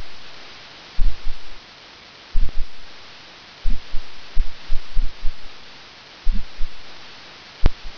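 Irregular low, muffled thumps on the microphone, about one every second or so, each dying away over about half a second, over a steady hiss; a single sharp click near the end.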